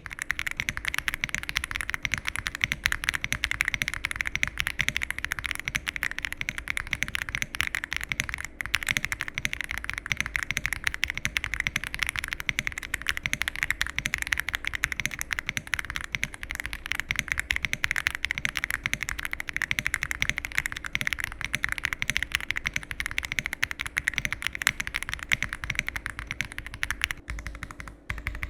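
Sound test of a Yunzii AL71 mechanical keyboard with a CNC aluminium case, typed on fast and continuously in a dense stream of keystrokes. The keystrokes have a soft clacky sound, not too shrill, with light switches. There is a brief lull near the end.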